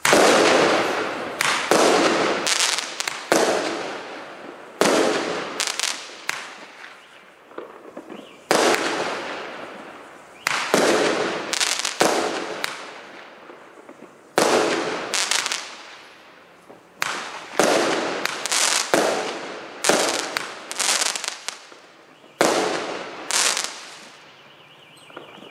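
A 12-shot consumer fireworks cake with 0.8-inch tubes firing in quick succession: a string of sharp bangs as the shells lift and burst, each dying away in a crackling tail from the crackler effects.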